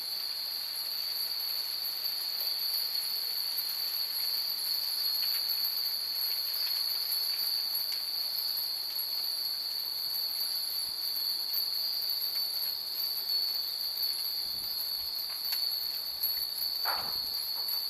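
Many furin wind chimes tinkling faintly and irregularly in a light breeze, over a loud, steady high chirring of insects.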